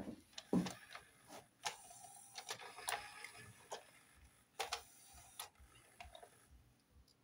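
Denon UDCM-M10E CD changer mechanism changing to the next disc: a small motor whirs quietly under a run of clicks and ticks from its plastic gears and moving parts, with a few sharper clicks about five seconds in.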